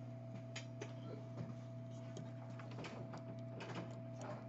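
Steady electrical hum with a thin high whine throughout, and scattered light clicks and taps at irregular intervals.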